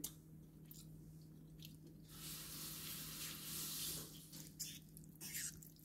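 A kitchen tap runs faintly for about two seconds in the middle and is shut off, with a few light clicks of dishes and a low steady hum underneath.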